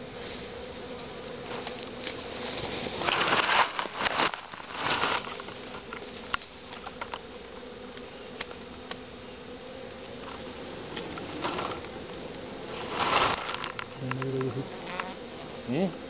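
A swarm of honeybees buzzing steadily. Louder bursts of rustling come about three seconds in and again near the end.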